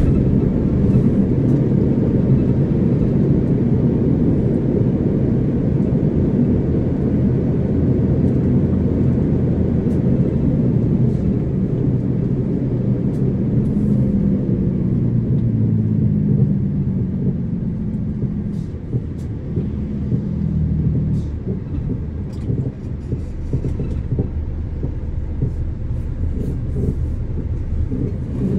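Steady low rumble of a vehicle's engine and tyres heard from inside the moving vehicle, with the engine note dropping in pitch around the middle and the rumble easing a little after that.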